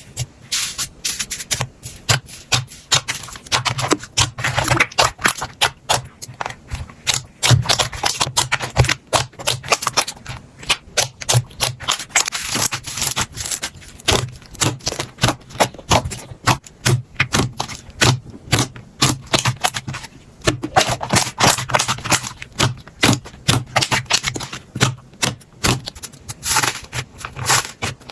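Slime being squeezed, poked and stretched by hand, giving a fast, dense, irregular run of clicks, pops and crackles.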